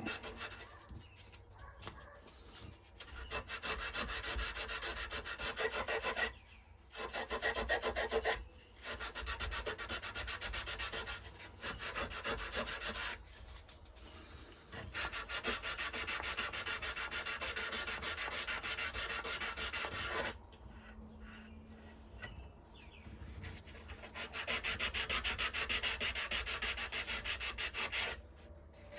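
Hand sanding a knife with 180-grit sandpaper: quick, even back-and-forth scraping strokes in four bouts with short pauses between, working out file marks.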